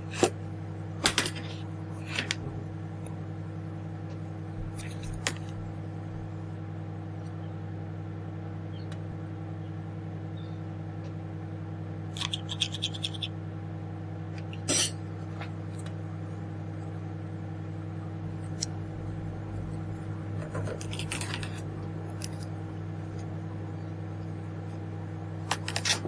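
Tin snips cutting the thin aluminium backing of an SMD LED strip, heard as a few sharp metallic snips and scraping clicks at separate moments, with the strip handled between cuts. A steady low hum runs underneath.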